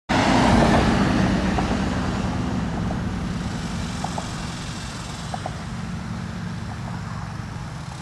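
Motor vehicle engine running with a steady low hum, under a louder rush of noise that is strongest at the start and fades over the first few seconds.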